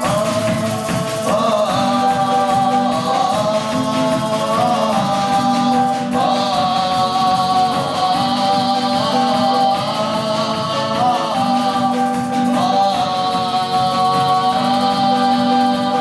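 Live band playing an instrumental break led by keyboard chords, over double bass and drums, with a shaker coming in and out.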